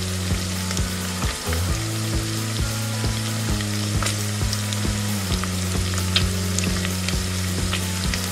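Steady frying sizzle, a sound effect laid over the toy cooking, with background music's low bass notes and a steady beat underneath.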